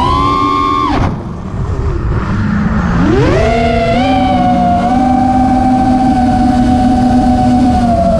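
5-inch FPV quadcopter's brushless motors (Hyperlite 2206-2600 spinning DALProp 5050 props) whining, the pitch following the throttle. The pitch drops sharply about a second in, climbs back about three seconds in, and then holds steady.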